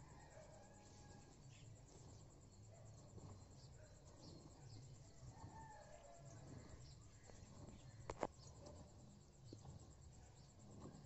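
Near silence: faint outdoor ambience with a few soft bird-like chirps and one sharp click about eight seconds in.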